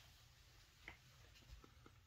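Near silence: room tone with a few faint ticks.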